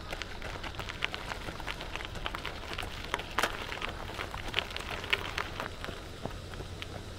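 Running footsteps crunching on a gravel path, a quick irregular patter of small crunches, over a steady low rumble.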